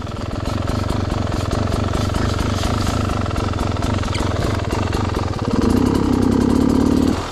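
Dirt bike engine running as it is ridden along a rough woods trail, getting louder for the last couple of seconds.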